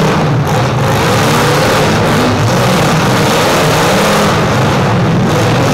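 Engines of several demolition-derby SUVs and small trucks running and revving together, loud and continuous, with the pitch wavering up and down.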